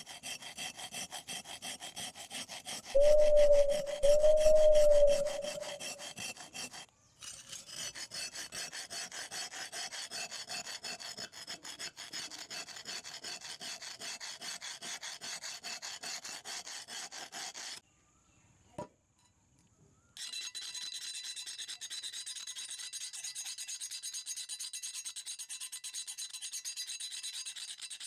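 A round file rasping in rapid strokes against the rusted cast iron of an antique charcoal iron. About three seconds in, two loud high squeals ring out over the filing. The filing stops for about two seconds before starting again.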